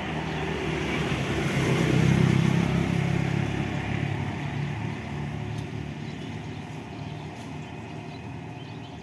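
A motor vehicle's engine passing by, loudest about two seconds in and then fading away.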